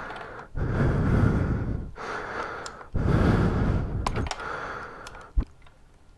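A man breathing hard from exertion, four heavy breaths in a row, as he strains to force a rubber airbox boot onto a carburetor. A couple of sharp clicks come near the end.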